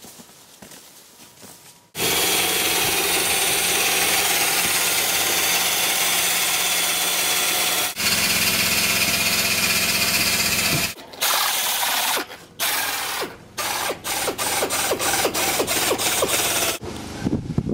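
Air-powered hand tool running on a steel roofing panel: it runs loud and steady from about two seconds in, breaks off briefly, runs on, then goes in many short bursts near the end.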